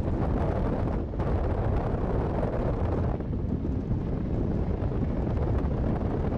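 Steady low rumble of a vehicle driving, with wind buffeting the microphone.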